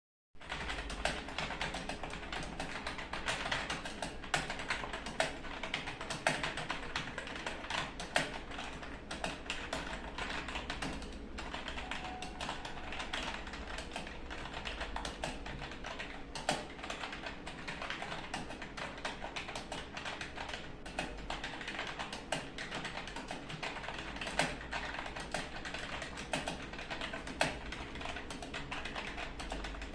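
Fast, continuous typing on a computer keyboard, a dense run of irregular key clicks, over a low steady hum.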